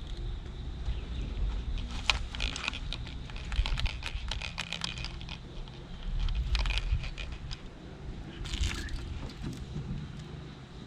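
Low rumble of wind on the microphone, with scattered bursts of clicking, rattling and rustling from things being handled in a boat, the busiest stretch a couple of seconds in.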